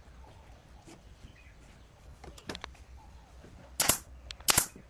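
A pneumatic nail gun fires twice near the end, two sharp shots about 0.7 s apart, driving nails to fasten a wooden leg to a bent-wood ring. A few light knocks come just before.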